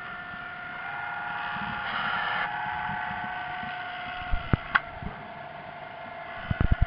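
Whine of radio-controlled model submarines' electric motors and propellers heard underwater: several steady tones that drift a little in pitch, swelling briefly about two seconds in. A few sharp clicks and knocks come in the second half.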